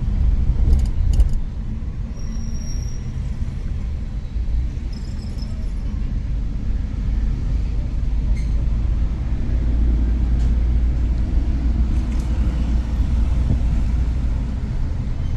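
Steady low rumble of a car driving, the road and engine noise heard from inside the cabin, with a few sharp clicks about a second in.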